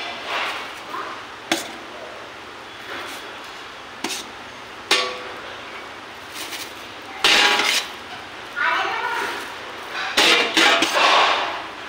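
A thin clear plastic bag being handled and crinkled close to the microphone, in irregular rustling bursts with a few sharp clicks; the three longest and loudest crinkles come in the second half.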